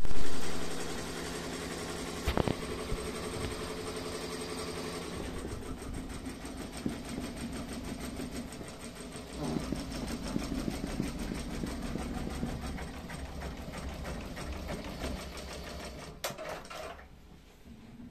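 Wonyo WY1201CM single-head 12-needle embroidery machine stitching, a fast steady clatter of needle strokes and frame movement. It is loudest in the first second and grows quieter near the end.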